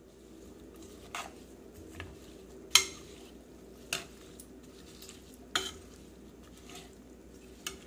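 Kitchen sounds around an open aluminium pressure cooker of vegetables, dal and water: a steady low hum with six short, sharp clicks, the loudest nearly three seconds in.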